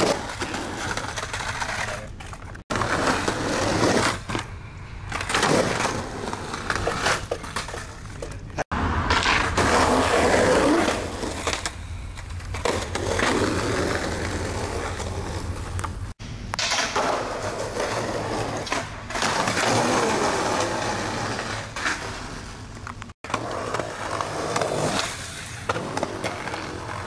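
Skateboard wheels rolling over concrete, with knocks and clacks of the board on tricks and landings, in several short takes that cut off abruptly one after another.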